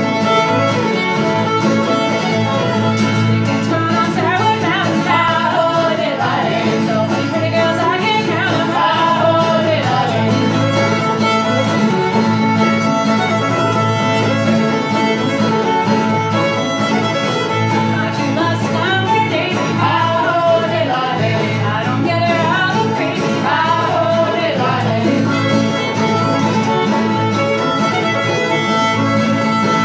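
Old-time string band playing a fiddle tune: fiddle carrying the melody over banjo and acoustic guitar, all playing together throughout.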